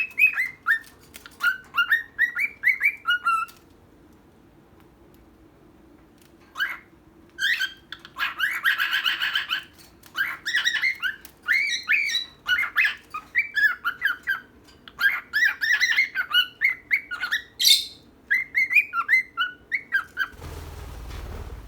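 Pet cockatiel chirping in quick runs of short whistled notes, with a brief pause a few seconds in and a harsher, raspy call about nine seconds in. A low rumbling noise comes in near the end.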